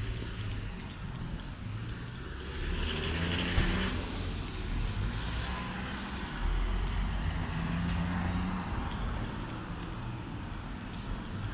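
Road traffic: cars and trucks running and passing by in a steady rumble. One vehicle swells up louder about three to four seconds in, with a short sharp knock at its peak.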